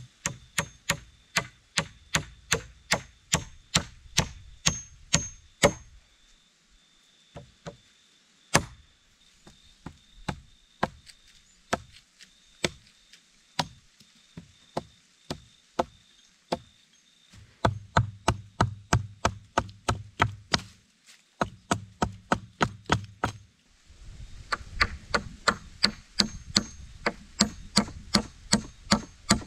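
A hatchet strikes wooden poles in quick, even blows, about two or three a second, with a few short pauses between runs of strokes.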